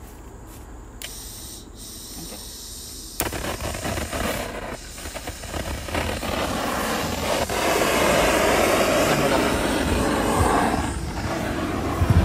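Blowtorch lit suddenly about three seconds in, then burning with a steady hiss that grows louder, as it heats the heat-shrink sleeve on a fiber optic splice closure.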